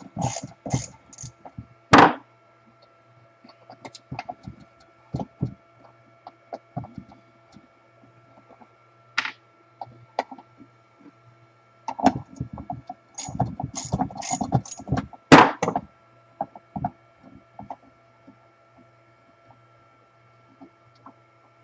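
Metal parts and hand tools clicking and clinking while a Milwaukee portable band saw is taken apart, in scattered bursts with a busier run about twelve to sixteen seconds in. A steady low hum runs underneath.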